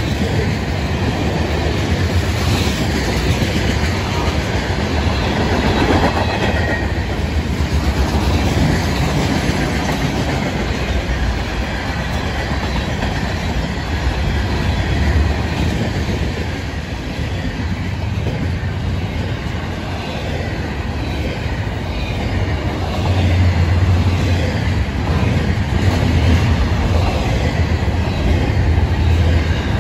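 Freight train cars rolling past at close range: a steady rumble and clatter of steel wheels on the rails, growing louder for the last several seconds.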